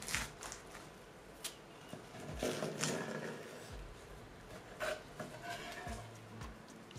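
A knife trimming the crisp puff-pastry edges of a layered Napoleon cake: irregular crackly crunches as the blade breaks through the flaky layers, the sharpest right at the start and a longer crunching run about two and a half seconds in.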